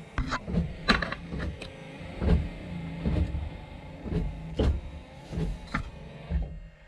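1964 Ford Galaxie's windscreen wiper motor running on its second speed. A steady motor hum is broken by a regular knock about every three-quarters of a second as the wiper arms sweep and reverse.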